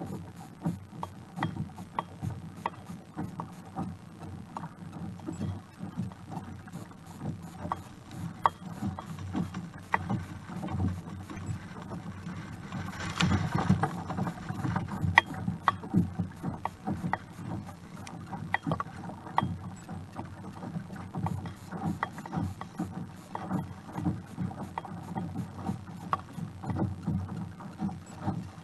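Water rushing and slapping along the hull of a Hobie Outback kayak under way in choppy, windy sea, with wind buffeting the microphone. Many small clicks and knocks run throughout, and a louder rush of water and wind comes about halfway through.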